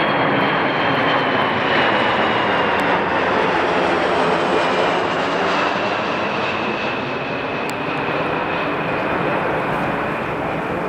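Jet aircraft flying low overhead: loud engine rush with a high whine that slowly drops in pitch, easing off in the second half as the plane moves away.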